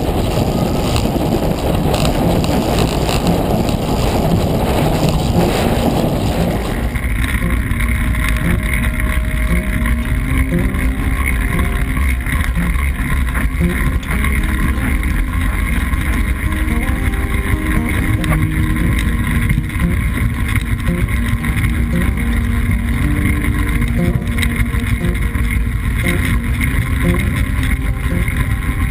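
Steady rush of wind on a bike-mounted action camera, with the rolling noise of a track bike ridden at racing speed on wooden velodrome boards. The noise changes abruptly about seven seconds in.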